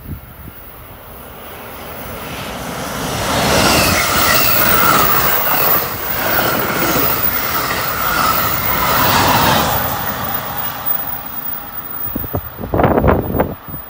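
NJ Transit double-decker multilevel passenger train passing close at speed: the rumble of wheels on rail builds over a few seconds, stays loud for several seconds with a wavering high whine over it, then fades. Near the end a few short, loud noises stand out.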